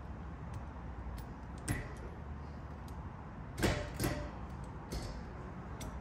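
A few sharp clicks and knocks of the Barton short-throw shifter and the plastic center-console parts around it being handled, loudest as a pair a little past halfway, over a low steady hum.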